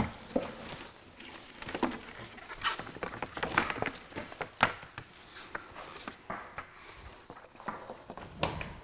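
Plastic stretch wrap rustling and crinkling as it is pulled off a cabinet, with scattered knocks and scrapes of cardboard edge protectors being removed and set down.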